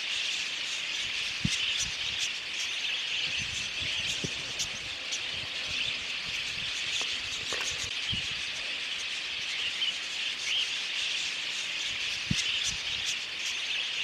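A large flock of budgerigars chattering: a dense, steady high twittering with single sharper chirps standing out here and there.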